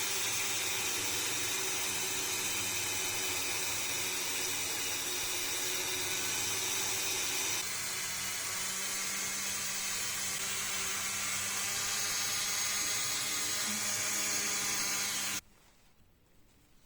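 Dremel rotary tool running steadily at high speed with a polishing pad, buffing a small steel pistol part, the firing pin safety. Its tone changes slightly about halfway through, and it stops suddenly near the end.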